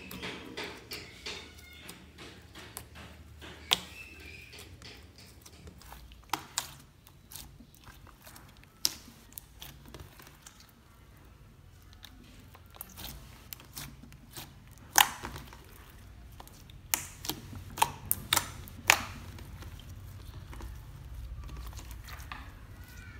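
Clear glitter slime being kneaded and squeezed by hand, giving irregular sharp clicks and pops as air caught in it bursts, with softer sticky squishing between. The loudest pops come about fifteen seconds in and in a quick cluster a few seconds later.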